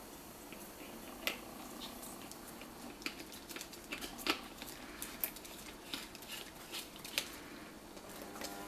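Handling noises as an olive-green metal filter canister is fitted to the side port of a rubber gas mask: irregular clicks and taps, the loudest about four seconds in.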